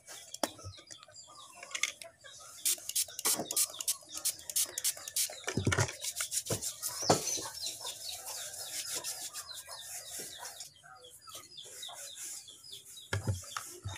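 Hands tapping and rubbing on a plastic-covered tabletop: a run of sharp taps and clicks with soft rubbing between them.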